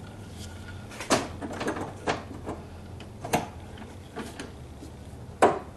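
Hand pop-rivet tool clicking and knocking as it is fitted onto a rivet and worked. About eight irregular sharp clicks, with the sharpest snap near the end.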